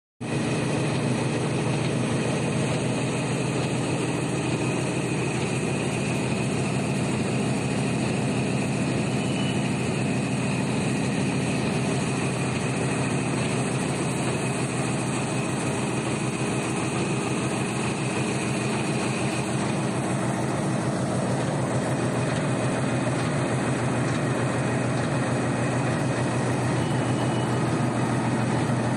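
Warp knitting machine for anti-hail netting running steadily: a loud, even mechanical noise with a constant low hum.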